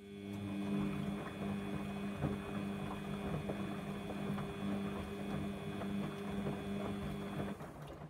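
Samsung washing machine's drum motor humming with a steady whine as it turns the wet load, with the wash churning inside. It stops abruptly near the end, the pause between the drum's alternating turns in the wash cycle.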